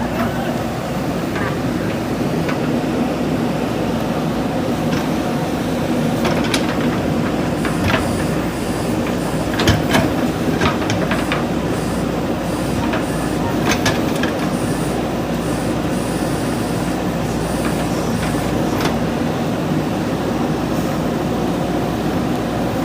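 Diesel engine of a JCB backhoe loader running steadily under work, with scattered sharp knocks and clanks, most of them in the middle stretch.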